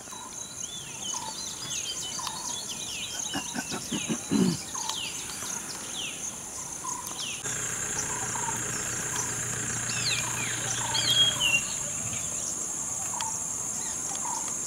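Steady high drone of insects in the bush, with many short bird chirps and whistled calls over it and a short call repeating about once a second. The insect drone changes pitch and texture about halfway through, and a faint low hum is heard for a few seconds after that.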